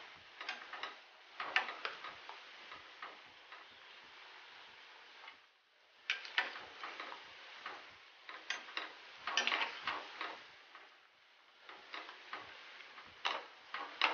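Besan masala mathri deep-frying in hot oil over medium-low heat: a steady sizzle with irregular clusters of crackling pops. The sizzle briefly dies down about five and a half seconds in.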